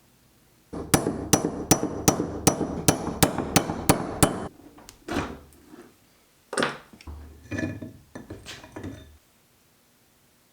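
Hammer blows on a steel drift punch, about ten sharp metallic strikes at roughly three a second. They are followed by a few scattered clinks and scrapes of metal parts.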